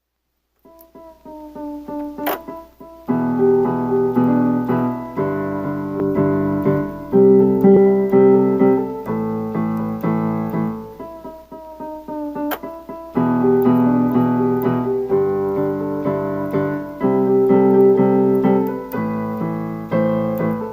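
Piano music: chords played in a steady rhythm.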